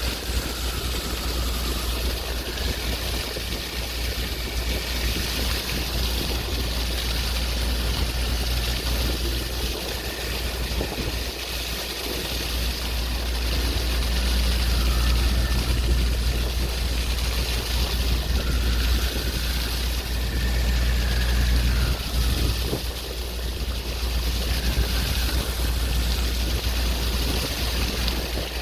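Sea waves washing with a heavy low rumble of wind on the microphone, a steady noise that swells a little about halfway through.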